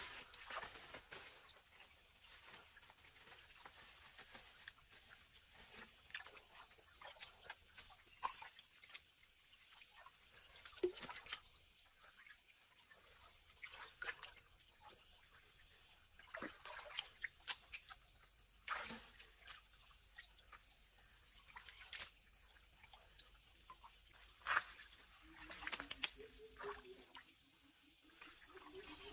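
A faint, high, rising chirp repeated about once a second from a wild creature, with scattered sharp clicks and knocks. A low, wavering call comes in near the end.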